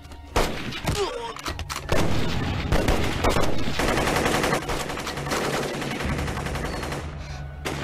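Rapid gunfire from a film battle scene: rifle and machine-gun shots in quick succession, starting about a third of a second in.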